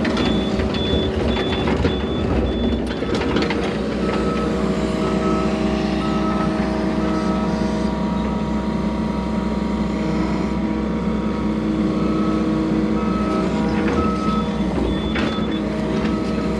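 Hydraulic excavator's diesel engine running steadily, with a machine warning beeper sounding at an even on-off rhythm, about once a second. A higher beep in the first few seconds gives way to a lower one.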